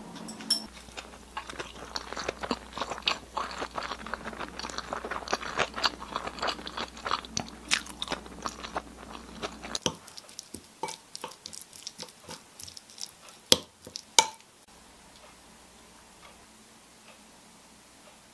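Wooden spoon mixing rice, stir-fried kimchi and ham in a ceramic plate: a dense run of wet crackling and clicks that thins out after about ten seconds, with two sharp knocks of the spoon on the plate shortly before it stops.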